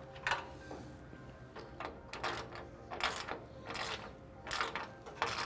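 Ratchet wrench with a 1/2 inch socket clicking in a series of short strokes as it tightens a bolt.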